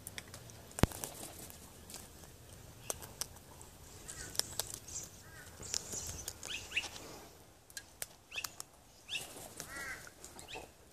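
Sulphur-crested cockatoo cracking seed with its beak from a hand: a run of sharp clicks and crunches, the loudest about a second in, with short chirps in between, most around the middle and near the end.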